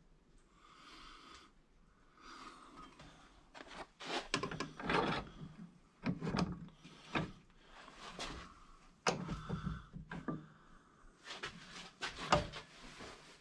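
Gloved hands working a steel rod in a cast-iron bench vise: irregular scraping and rubbing, with several sharp clanks of metal against the vise.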